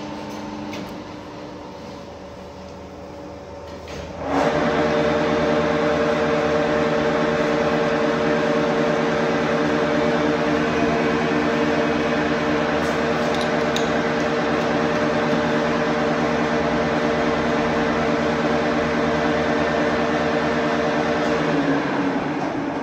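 Metal lathe running: a steady machine hum that jumps to a much louder, steady multi-tone whir with hiss about four seconds in, holds, and winds down just before the end.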